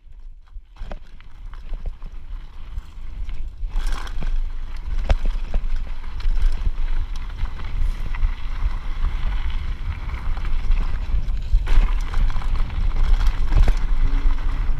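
Wind buffeting the microphone while a mountain bike rolls fast down a dirt trail, with tyre noise on the dirt and the bike rattling and clicking over bumps. It gets louder and rougher as speed builds, most of all about four seconds in and again near the end.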